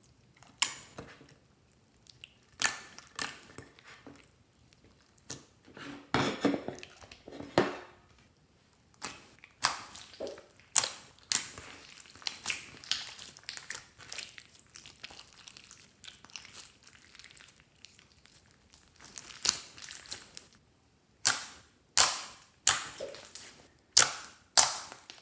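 Clear slime being squeezed, folded and pressed by hand, giving off sharp popping clicks as trapped air bubbles burst, with some stretches of quicker crackling.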